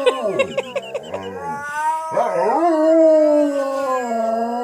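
A dog and a girl howling together: short yips and wavering whines in the first second and a half, then a long drawn-out howl that rises and holds.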